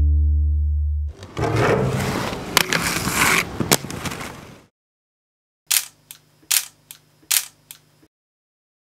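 Inline skate wheels rolling over rough concrete, with a few sharp knocks, stopping abruptly about four and a half seconds in. After a short silence, a camera shutter clicks about four times, roughly half a second apart.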